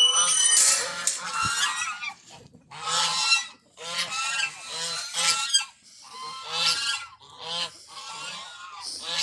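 Domestic geese honking loudly, a run of repeated calls that overlap at times.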